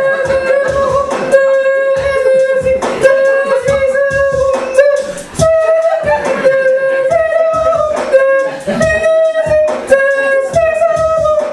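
A woman beatboxing into a microphone: a hummed, mostly held note that steps up to new pitches a few times, over a steady beat of vocal clicks and thumps.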